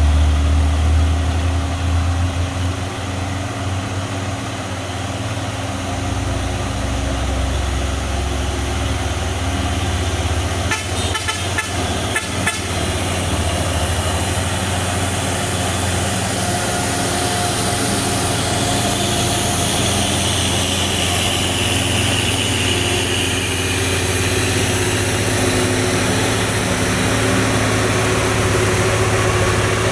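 Heavy trucks and buses running on a steep uphill road. A deep engine hum is loudest at the start and eases after a few seconds, and a vehicle horn sounds in the second half. There is a short rattle about eleven seconds in.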